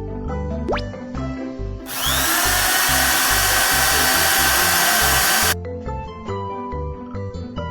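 Cartoon sound effect of a piling drill spinning up and boring, loud and steady for about three and a half seconds from about two seconds in, then cutting off suddenly. It plays over cheerful background music, with a short rising whistle-like glide just before it.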